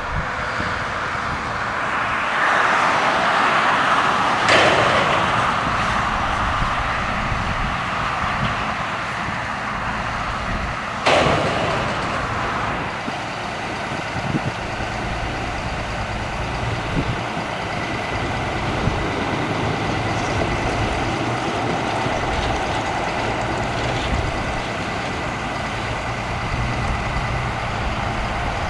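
Shuttlewagon SWX410 railcar mover's diesel engine running steadily while switching grain cars, with two sharp bangs about five and eleven seconds in and lighter clanks after.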